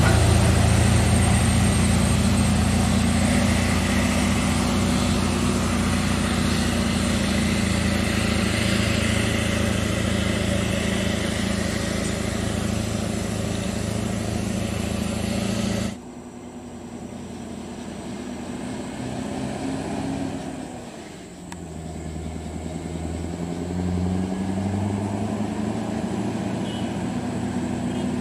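Scania R580 truck's V8 diesel engine running under load with a steady deep note. About two-thirds of the way through it cuts suddenly to a quieter stretch where the engine note falls, dips and then climbs again.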